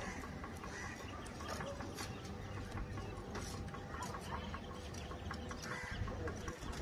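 Quiet outdoor background with faint clucking of fowl and a few light ticks.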